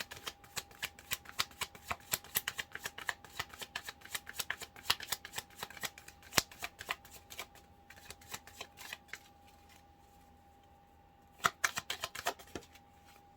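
A tarot deck shuffled by hand: a quick, dense run of card clicks and riffles for about nine seconds. Then a pause, and a short flurry of card snaps about eleven and a half seconds in.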